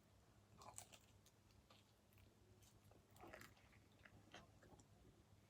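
Faint chewing: soft, scattered mouth clicks and small crunches of someone eating pizza, heard close to the microphone in a quiet room.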